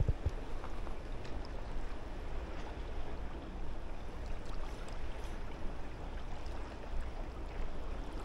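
Seawater washing and lapping among concrete breakwater tetrapods as the tide floods in, a steady wash of noise with a few faint ticks. A brief low knock comes at the very start.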